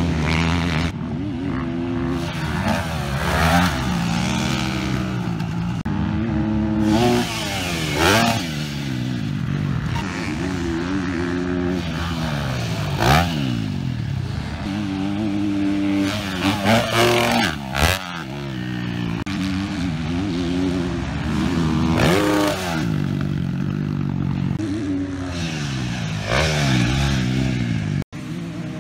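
Motocross dirt bikes riding the track, their engines revving up and dropping back again and again as the riders shift gears, accelerate and pass by. The sound cuts out for an instant near the end.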